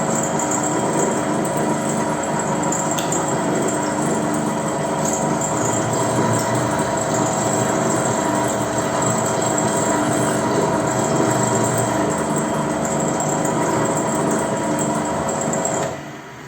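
Electric drill running steadily as it bores a hole into a motorcycle clutch basket, then stopping suddenly near the end.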